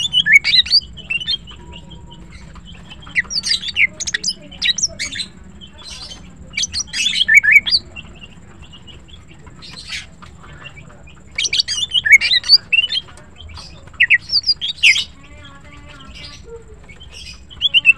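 Female green leafbird (cucak ijo) singing in short bursts of rapid, high chirping notes and quick glides, with a new phrase every two to three seconds and brief pauses between.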